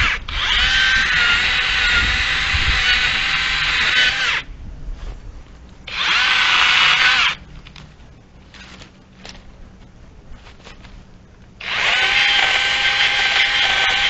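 Cordless battery chainsaw running at full speed in three bursts as it cuts brush, a high, steady motor whine: about four seconds, a short burst halfway through, and again from near the end. Between bursts, a few light snaps and clicks of branches.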